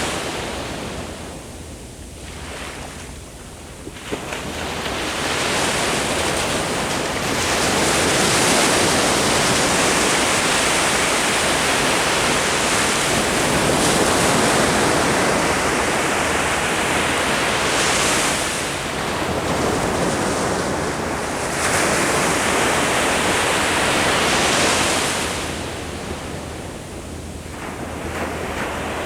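Ocean waves breaking and washing up the beach in a continuous surf. Lulls come about two seconds in and again near the end, with louder surges of breaking water in between.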